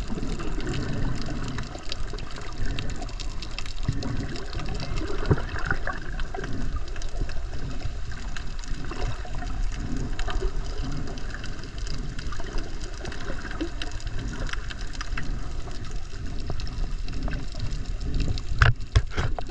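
Muffled rush and slosh of water heard by a camera held underwater, with a couple of sharp knocks near the end.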